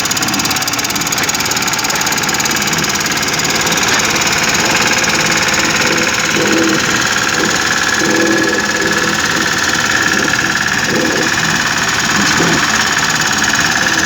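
Road roller's engine running steadily. A high steady whine grows stronger about halfway through.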